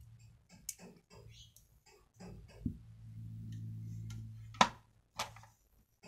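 Sharp clicks and a dull knock from a small metal folding knife and a plastic screwdriver-bit case being handled and set down. The loudest click comes a little after halfway; a low steady hum comes and goes underneath.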